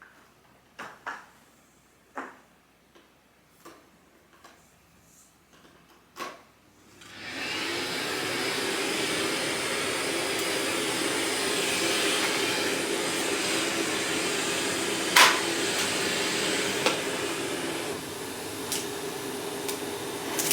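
A few light clicks and knocks, then a Miele vacuum cleaner switches on about seven seconds in and runs steadily with a low hum under the rushing air, with one sharp knock partway through.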